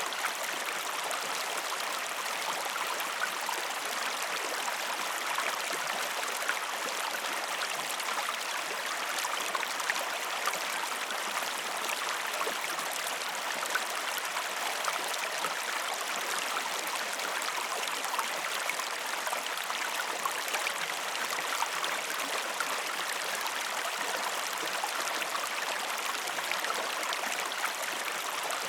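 Steady, calm river ambience: flowing water running over stones, with small trickles and splashes in a constant even wash.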